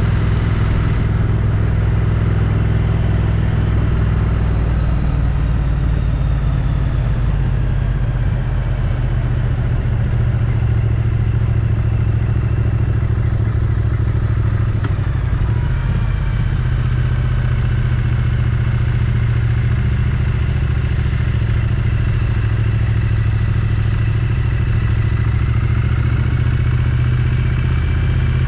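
Triumph Street Twin's 900 cc parallel-twin engine on its stock exhaust, running steadily under way as the motorcycle rides along, its note shifting about halfway through.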